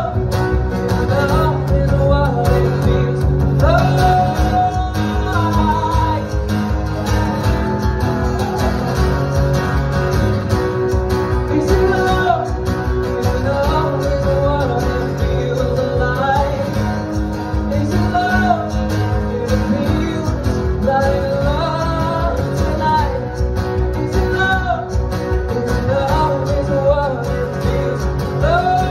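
A man singing a song while strumming an acoustic guitar in a steady rhythm.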